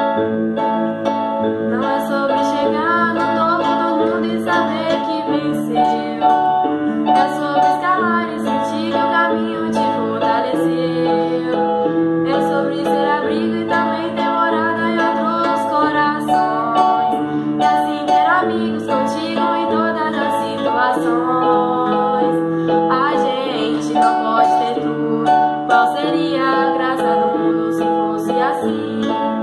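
A girl singing a song to acoustic guitar and electronic keyboard accompaniment, played live together.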